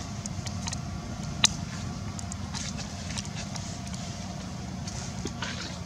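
Steady low outdoor rumble with scattered small clicks and rustles, and one sharp click about a second and a half in.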